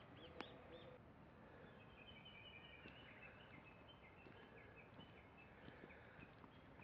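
Faint birdsong over quiet outdoor hush: a few high chirps at the start, then a run of short, quickly repeated high notes lasting a few seconds.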